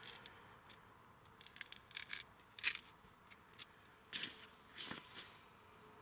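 A mandarin being peeled by hand: quick, irregular tearing and crackling of the peel coming away from the fruit.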